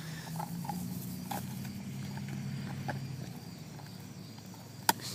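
German shepherd chewing a pig-shaped chew treat, with scattered crunches and clicks of teeth on the hard treat and one sharper click near the end, over a steady low hum.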